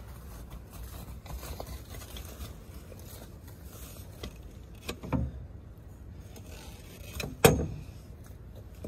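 Hand-pushed Rollaerator spiked-disc lawn aerator rolling over wet grass, its tines punching into the turf with a soft rustling and scattered clicks. Two sharp thumps come about five and seven and a half seconds in, the second the loudest.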